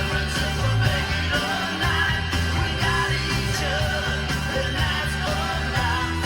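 A song with singing over a strong bass, played on the 2016 Mitsubishi Montero Sport GLS Premium's car audio system and picked up inside the cabin by a phone's microphone.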